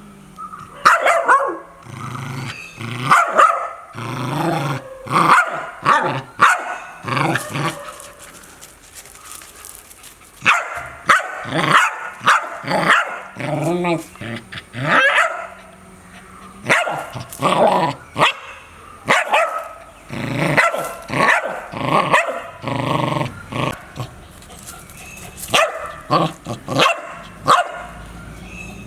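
A dog barking over and over in bursts of several barks, with short pauses between the bursts.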